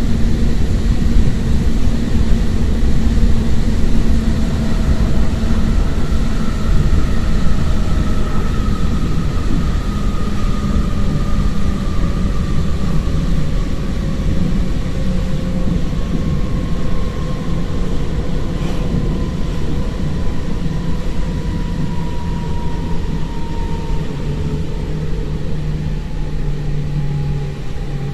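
Siemens Desiro ML (class 460) electric multiple unit running, heard from inside through an open window: steady wheel and wind rumble with a traction-motor whine falling slowly in pitch as the train slows.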